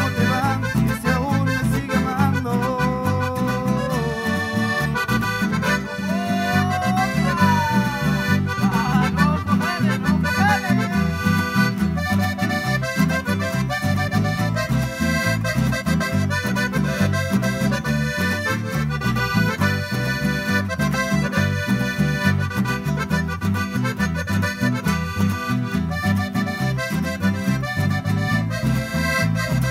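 Accordion-led music with a steady rhythmic bass line.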